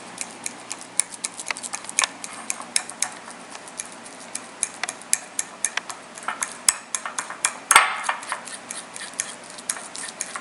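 Banana bread batter being stirred by hand in a bowl: a utensil clinking and scraping irregularly against the bowl, with one louder knock about eight seconds in.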